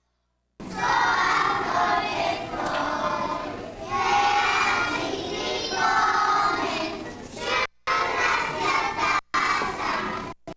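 A group of young children singing together on stage. The sound is cut off completely for the first half second, and it drops out briefly a few times near the end.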